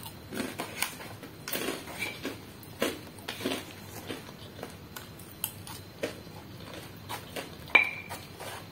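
Close-up eating sounds: chewing and mouth smacks, with the crinkle and rustle of the paper rice wrapper as food is picked from it by hand. There are small clicks throughout and one sharp, brief ringing click about three-quarters of the way through.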